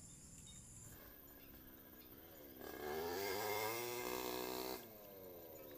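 A loud, wavering, voice-like pitched sound lasting about two seconds. It begins about two and a half seconds in with a short rise and fall, then holds with a quick wobble in pitch before cutting off suddenly.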